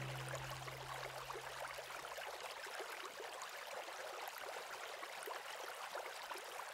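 The last held notes of the soundtrack music fade out over the first two seconds, leaving the steady, faint rush of a running stream.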